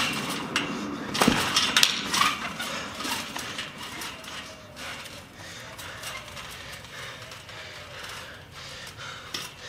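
Backyard trampoline's mat and steel springs thumping and jangling under repeated landings as someone bounces and drops onto his back. The landings are loudest in the first two seconds or so, then give way to softer bouncing.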